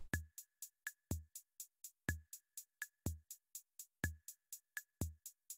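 Quiet drum-machine beat: a bass drum about once a second under light ticks about four a second, with a short high blip on some beats. It is the backing beat that marks the learner's time to answer.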